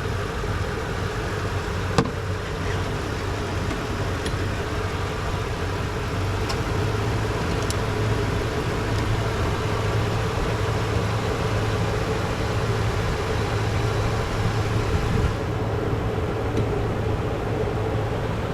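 Toyota Tundra's 4.6-litre V8 idling steadily, just restarted after a blown injector fuse was replaced. A single sharp click comes about two seconds in, with a few faint ticks later.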